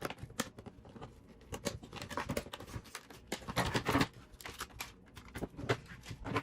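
Irregular rustling, crinkling and small clicks of packaging and parts being handled and unwrapped.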